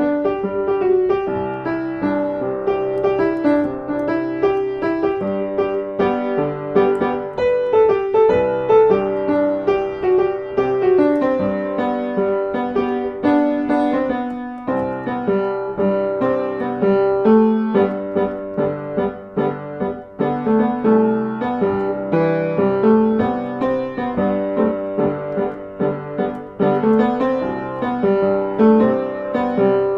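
Background solo piano music, a steady flow of notes.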